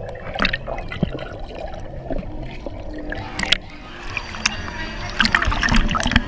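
Swimming-pool water heard by a camera dipped underwater: muffled bubbling and sloshing. About three and a half seconds in it breaks the surface, and the sound turns to brighter splashing and water running off the lens.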